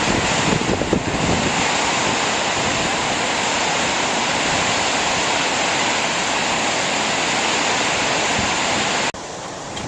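Gullfoss waterfall: a loud, steady rush of falling water, with wind buffeting the microphone for about the first second. About 9 s in it drops abruptly to a quieter, more distant rush.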